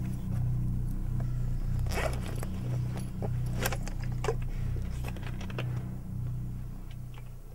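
A backpack being unzipped and rummaged in, with sharp zipper and scraping clicks a couple of times near the middle, as a plastic water bottle is taken out. A low hum of background music runs under it and fades near the end.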